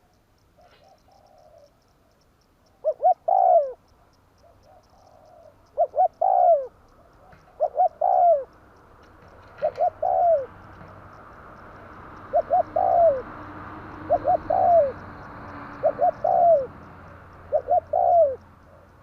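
Spotted dove cooing: about eight phrases, each two short notes and a longer note that falls at the end, repeated roughly every two seconds. A softer, fainter cooing comes in the first two seconds, and a steady hiss swells in the middle.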